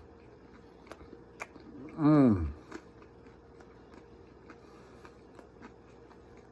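A man's voice gives one drawn-out, wordless sound about two seconds in, its pitch rising then falling. The rest is faint scattered clicks.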